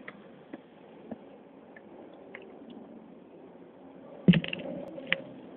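Faint crackle with scattered sharp clicks, then a loud thump a little past four seconds in, followed by a short rough rustle and a few louder clicks.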